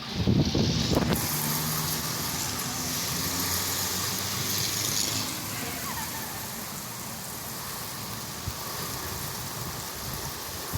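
Steady noise of a rainstorm, with a loud low rumble in the first second and a motor vehicle's hum and hiss that fade out about five seconds in.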